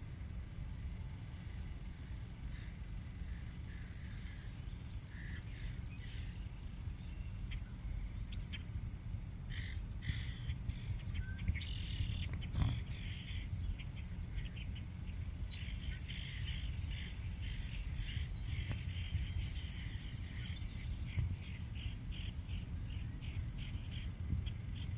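Short, high chirping animal calls, scattered at first, with a brief higher call about halfway through and a quick run of chirps over the last third, over a steady low rumble.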